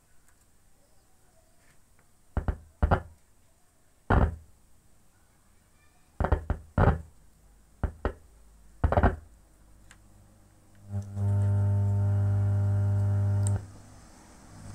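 Speaker thumps and pops from a homemade 2SC5200/2SA1943 transistor amplifier as a wire is touched to and pulled from its connections: about eight sharp thumps in uneven pairs. Near the end comes a steady low tone through the speaker for about two and a half seconds, which cuts off suddenly.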